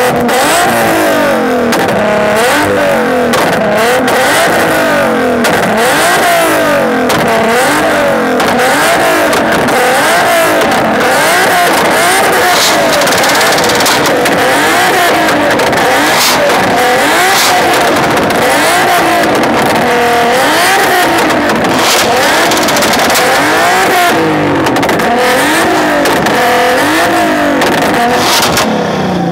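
Several car engines revving over and over, overlapping one another, their pitch rising and falling every second or two.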